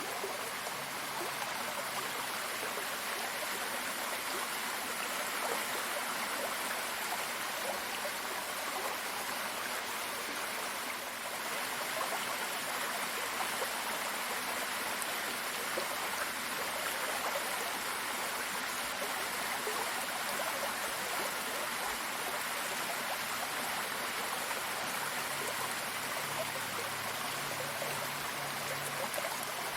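Running water flowing steadily, an even rushing and splashing that never pauses.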